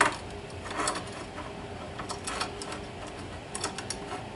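Scattered light clicks and metallic taps as a small handheld tubing cutter and a just-cut piece of half-inch copper pipe are handled, the loudest click right at the start.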